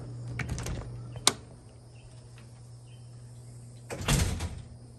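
A door being opened: a short rattle, then a single sharp click of its latch about a second in. A brief clatter or rustle follows about four seconds in.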